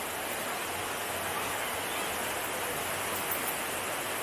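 Shallow rocky river running over small rapids, a steady rush of water.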